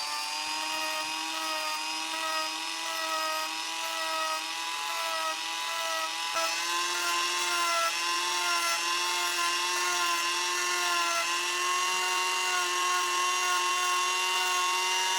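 Dremel rotary tool with a sanding drum running at high speed, sanding a small wooden ring: a steady high whine that creeps slightly higher in pitch and cuts off abruptly at the end.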